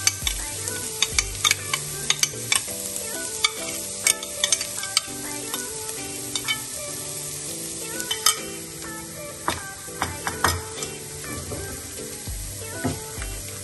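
Creamy sauce sizzling in a hot stainless steel frying pan as a silicone spatula scrapes it in from a bowl and stirs it, with frequent sharp clicks and scrapes of the spatula on the metal.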